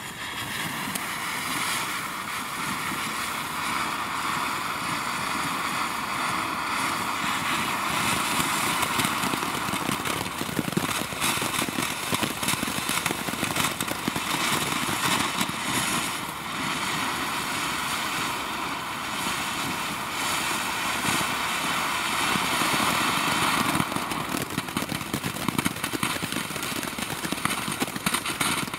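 Magic Fountain ground firework fountain burning: a steady loud hiss of spraying sparks with crackling all through it.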